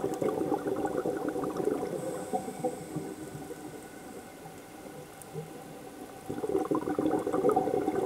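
Scuba diver's exhaled breath bubbling out of the regulator underwater, in two bursts: one fading out about two seconds in, the next starting near the end, with quieter water between them.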